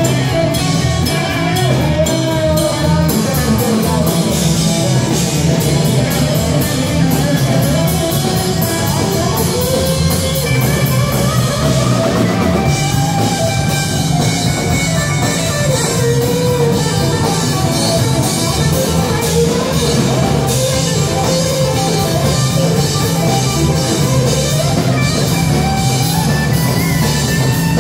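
Live rock band playing loud and amplified: electric guitar, electric bass and a drum kit, with no singing and a guitar line that bends up and down over the beat.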